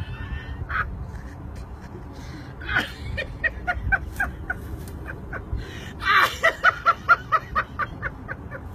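Someone laughing in two bouts of quick, rhythmic ha-ha pulses: a short one about three seconds in and a louder one about six seconds in.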